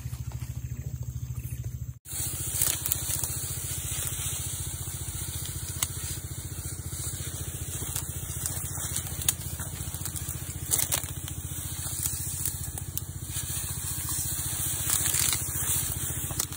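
Small Robin petrol engine driving the sprayer pump runs steadily at a constant speed, with crunching and rustling of dry palm fronds and undergrowth over it.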